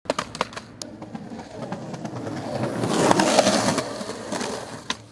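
A skateboard clacks and knocks several times in the first second as it flips and strikes the concrete. Then its wheels roll on concrete, the sound swelling to a peak around three seconds in and fading, with another knock near the end.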